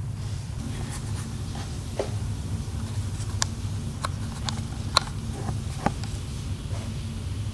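Flip-flop footsteps on a wooden floor: a string of light, irregular slaps and taps, over a steady low hum.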